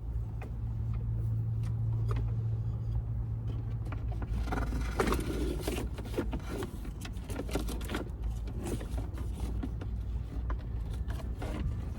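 Steady low vehicle hum under scattered clicks and rustling as electrical wires are handled and rolled up, busiest about four to six seconds in.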